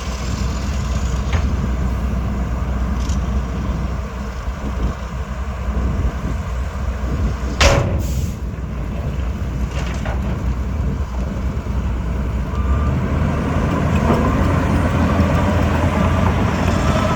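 Heavy diesel earthmoving machinery running steadily with a low engine rumble. A short, sharp burst comes about seven and a half seconds in, and a rising engine note follows near the end.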